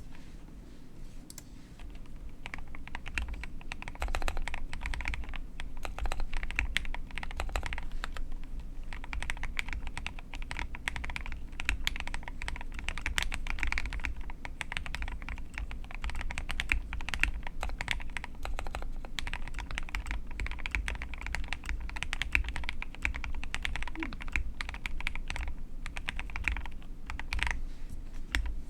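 Continuous typing on a 75% mechanical keyboard with lubed Gateron Yellow linear switches, lubed Cherry screw-in stabilizers and PBT keycaps: a dense, steady patter of keystrokes, each with a deep low thock under the click, picking up pace about four seconds in.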